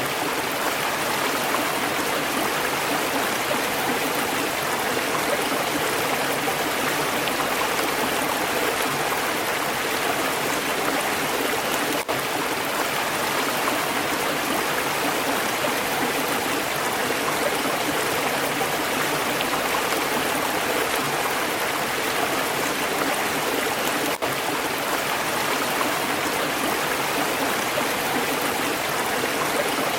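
Stream water flowing steadily, an even rushing sound, with two brief dips in level about 12 and 24 seconds in.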